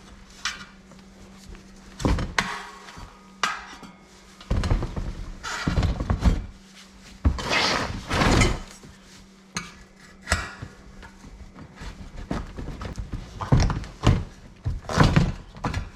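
Tire lever prying a stiff new Dunlop MX53 motorcycle tire's bead over a 19-inch Sur Ron X rim: irregular metal clanks and knocks of the lever against the rim, between stretches of rubber scraping as the bead is forced on.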